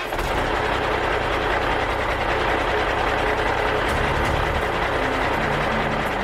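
Steady noise like a heavy vehicle's engine running, with low bass notes of intro music coming in about four seconds in.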